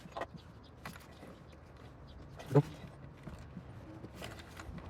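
A few faint clicks and taps of a fuel injector being worked into its bore by hand on a BMW N54 engine, with a brief voiced sound about two and a half seconds in.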